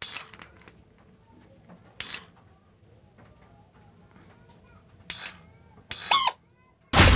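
Motorcycle electric starter motor bench-tested off a battery, spinning in short bursts each time the lead touches: three brief whirs, then a louder, longer spin about six seconds in whose whine rises and falls. Loud music starts at the very end.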